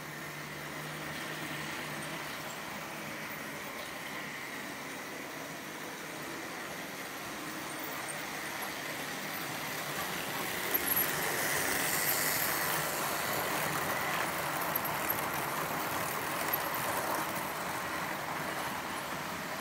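Märklin H0 model trains running on K-track: a steady whir of the small motors and rolling of the wheels on the rails, growing louder about halfway through, with a few small clicks.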